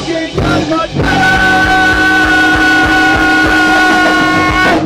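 Punk rock song with guitar and a steady drum beat. A long held note comes in about a second in and holds until just before the end.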